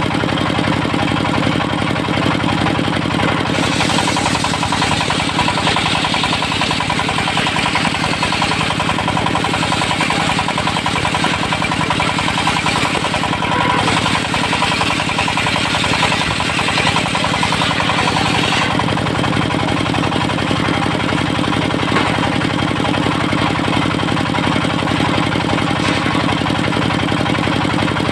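Engine-driven circular sawmill running steadily, its blade ripping teak into 11 by 5 cm beams: from about three seconds in to about eighteen seconds a rushing hiss of the cut rises over the engine, then the saw runs on without load.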